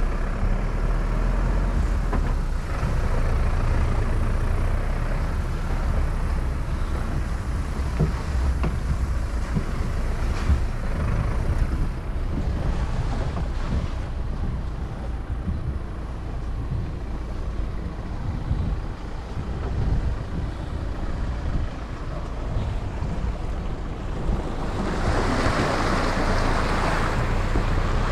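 Outdoor ambience dominated by wind rumbling on the microphone, a steady low buffeting. About 25 seconds in, a louder rushing swell rises and fades.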